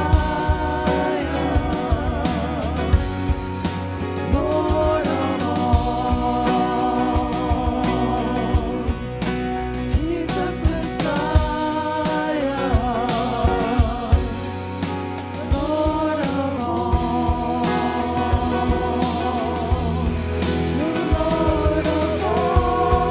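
Contemporary worship band playing a closing song: a sung melody over guitar, bass and a drum kit.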